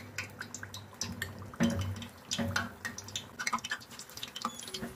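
Pakora batter dropped by the spoonful into hot oil in a steel pan, crackling and sizzling in many small pops, with a couple of louder knocks near the middle.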